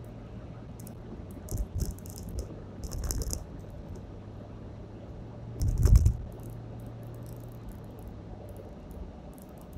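Rattling and knocking inside a moving car's cabin over a steady low hum, with the loudest clatter about six seconds in.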